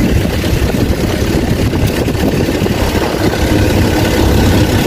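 A vehicle's engine running steadily while driving, a continuous low rumble mixed with road noise.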